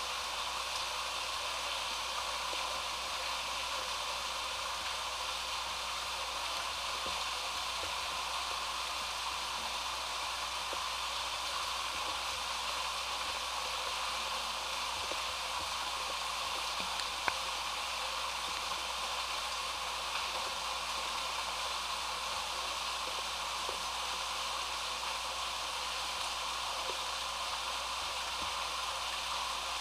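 Steady rush of water flowing and splashing inside a storm drain pipe, echoing in the enclosed pipe, with a single faint click about halfway through.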